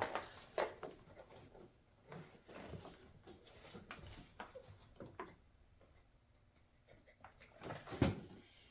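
Irregular light clicks and knocks of hands working a stubborn fastener on a plastic air filter housing. The loudest knock comes near the end.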